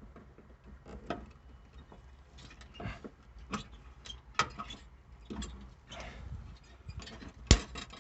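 Irregular small clicks, taps and scrapes of hand tools and wire being handled, with one sharper knock near the end.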